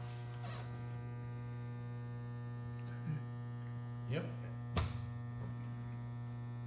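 Wardwell B10-64 wire harness braider running with a steady electric hum. A few brief squeaks come around three and four seconds in, and one sharp click a little later.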